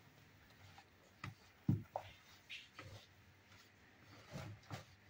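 Wooden spoon stirring flour in a plastic mixing bowl: faint scraping with a few soft knocks against the bowl, the loudest just under two seconds in.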